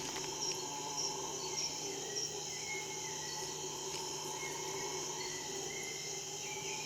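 Tropical insects calling together: several steady drones at different pitches, with short chirps repeating throughout.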